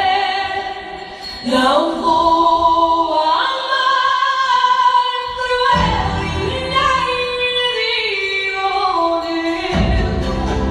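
A song with a woman singing long held, gliding notes over choir-like backing; a low accompaniment comes in about halfway through.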